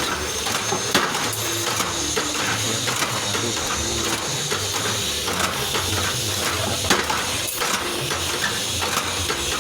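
Automatic rebar stirrup-bending machine, driven by a single-phase electric motor, running: a steady mechanical din with many irregular metallic clicks and clanks, two sharper knocks about a second in and near seven seconds.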